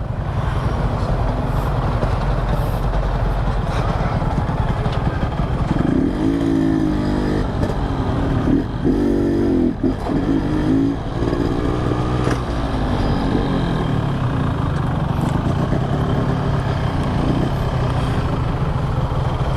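Yamaha RX-King's single-cylinder two-stroke engine running, its pitch rising and falling with the throttle between about six and twelve seconds in.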